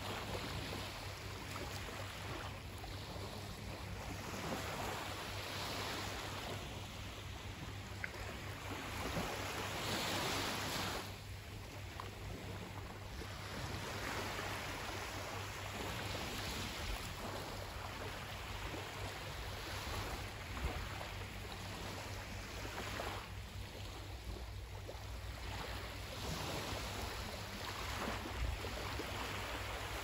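Sea waves washing in, the surf swelling and falling back every few seconds and loudest about ten seconds in, over a steady low rumble.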